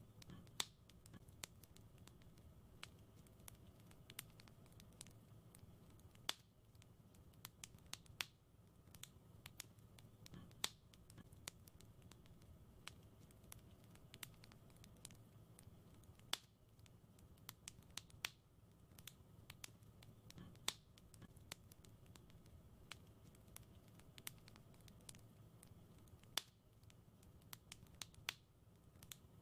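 Wood fire in a fireplace crackling faintly, with irregular sharp pops and snaps, a few louder ones every few seconds, over a low steady rumble.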